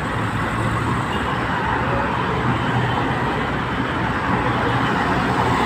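Steady road traffic noise: vehicle engines running and tyres on the road, with a constant low engine hum.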